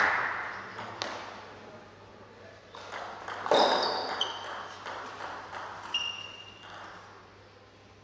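Table tennis ball clicking back and forth off the bats and the table in a rally, with a few short high-pitched squeaks in the middle of the point.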